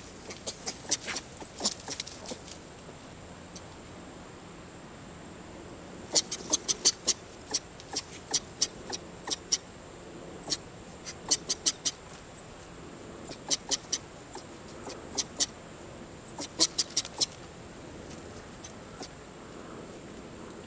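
A young South American coati climbing on a thin branch, making rapid short, sharp, high clicks that come in clusters of several a second with pauses between.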